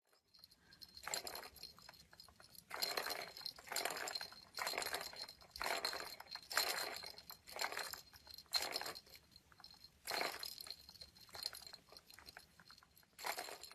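Small plastic ball rolling and rattling around the track of a cat's circular track-and-scratcher toy, set going again and again: about a dozen short rolling runs at uneven intervals.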